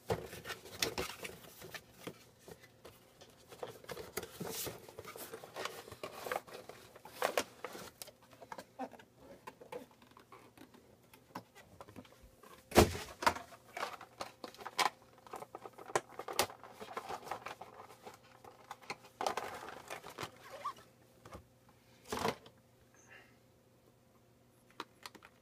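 Cardboard box and clear plastic clamshell packaging being handled and opened: rustling, crinkling plastic and scattered small clicks, with two louder knocks, about halfway through and again near the end.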